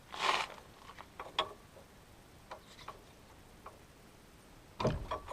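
Hand tools being handled: scattered sharp metallic clicks and clinks of wrenches, with a short rustle just after the start and a heavier knock near the end.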